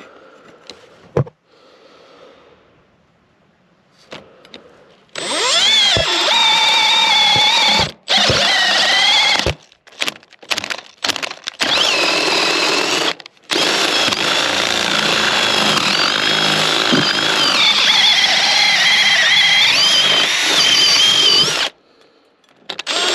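Power drill boring a hole down into the top of the wall, starting about five seconds in. It runs in a few short bursts, then for about eight seconds without a break, its pitch wavering under load until it stops near the end.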